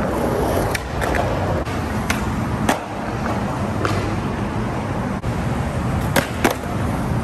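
Skateboard wheels rolling on concrete, with a handful of sharp clacks of the board striking the ground, two of them close together about six seconds in. A steady hum of road traffic runs underneath.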